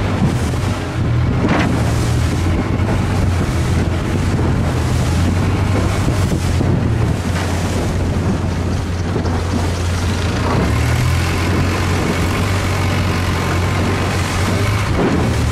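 Long-tail boat's engine running steadily at speed, a loud low drone, with the rush of wind and water over it.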